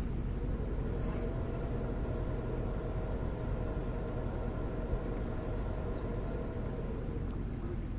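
A distant engine droning steadily over a low rumble, its tone coming in about half a second in and fading out near the end.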